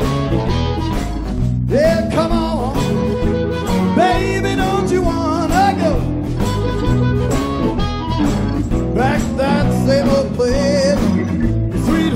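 Live blues band playing, with a lead line that bends and slides in pitch over a steady low bass and rhythm.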